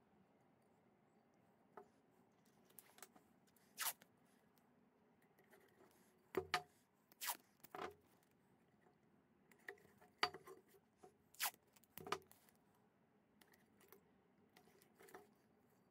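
Blue masking tape being torn, peeled and pressed onto a car filter's metal canister: a dozen or so brief rips and crackles at uneven intervals.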